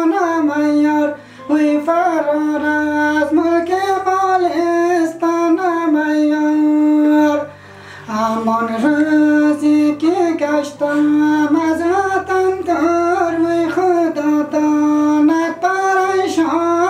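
Solo voice singing a Hazaragi folk song in a high, ornamented melody, phrase by phrase with short breath pauses, over low held accompanying notes.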